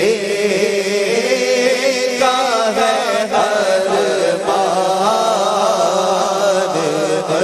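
Devotional chanting in a melodic voice, like a nasheed. Long held notes slide up and down without pause.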